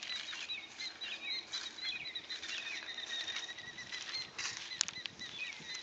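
Birds chirping, a steady run of short, high calls, with footsteps on the muddy bank and a sharp click near the end.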